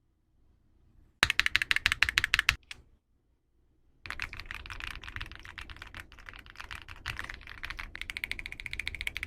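Typing on a ZIFRIEND RX75 PRO mechanical keyboard: a short burst of fast, loud key presses, a pause, then a long run of rapid typing.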